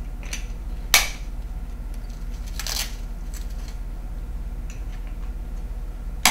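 Plastic buckles on the chest straps of a KED short spine board snapping shut, with two sharp clicks about a second in and near the end, and a short rasp of strap webbing being pulled tight between them.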